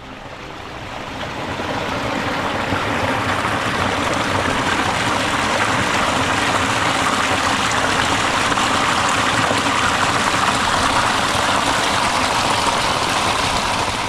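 Stream running: a steady rush of water that grows louder over the first couple of seconds, then holds even.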